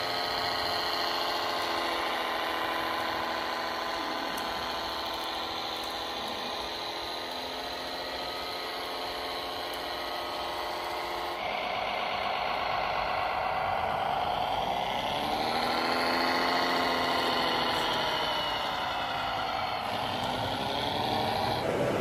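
Radio-controlled model vehicle's drive running with a steady whine. About halfway the sound changes abruptly, and then the whine's pitch sags and climbs again as the model slows and speeds up.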